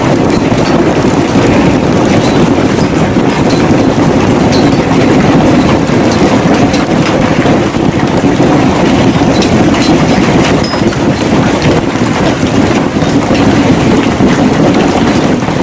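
Hail pelting down hard: a loud, continuous roar of impacts, peppered with sharp cracks from the larger stones.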